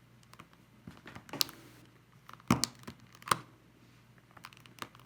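Small clicks, scrapes and crinkling as a rechargeable ML2032 coin-cell battery is pried up out of its holder in a Logitech K750 keyboard. There are three sharper clicks, about a second and a half, two and a half, and three seconds in.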